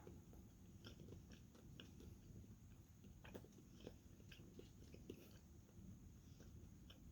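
Faint chewing of pork snack bites, with a few soft clicks scattered throughout.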